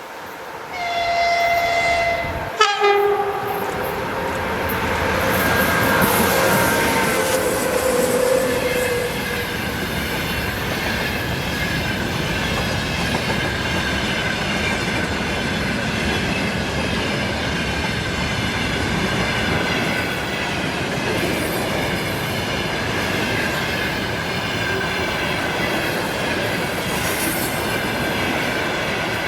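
An electric train sounds its horn, a longer blast followed by a short one, then rolls past with a steady rumble and clatter of wheels on rail and a thin steady wheel squeal.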